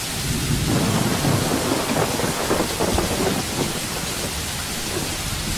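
Steady heavy rain falling, with thunder rumbling low underneath.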